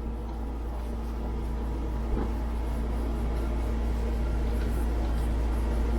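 Steady low mechanical hum with a faint constant tone, slowly growing louder.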